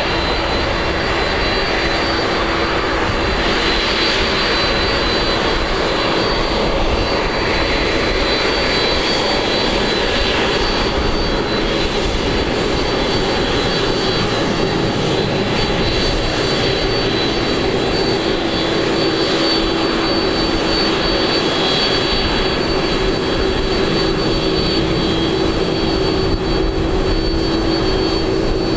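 Boeing 767 freighter's twin turbofan engines at taxi power: a steady jet whine with high tones over a lower hum, the hum growing stronger past the middle.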